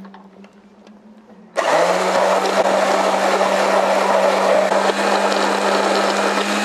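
Electric stick blender puréeing thick chickpea and tahini paste into hummus. A low motor hum runs first. About a second and a half in, it turns into a loud, steady churning, and the hum drops slightly in pitch as the blade meets the thick paste.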